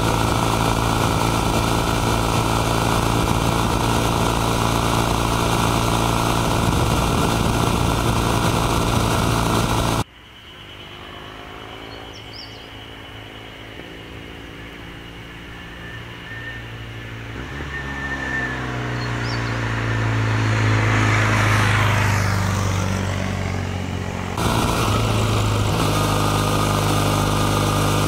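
Kawasaki W800 Cafe's air-cooled, 360-degree-crank vertical-twin engine and exhaust heard close up while riding, running steadily. About ten seconds in, the sound drops away: the bike is then heard from the roadside, faint at first, growing louder as it approaches with its engine note bending up and down, passing by and falling in pitch about two-thirds of the way through. The close-up riding sound comes back sharply about three and a half seconds before the end.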